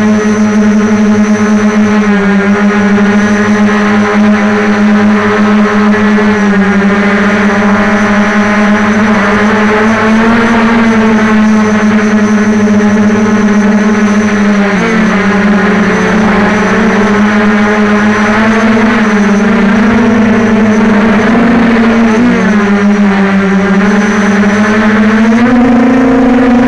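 Quadcopter's electric motors and propellers running close to the microphone: a loud, steady buzzing hum whose pitch wavers up and down with the throttle. It dips briefly about halfway through and rises near the end.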